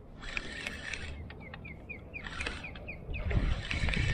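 A bird calls a quick run of about seven short, falling chirps a little over a second in, over faint scattered clicks; a low rumble of handling or wind noise rises near the end.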